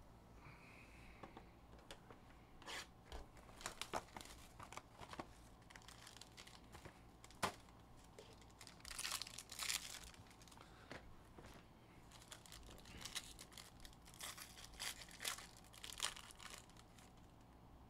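Faint clicks and rustles of a cardboard trading-card box being handled and opened, then crinkling and tearing of a foil card pack being ripped open, in bursts about nine seconds in and again near the end.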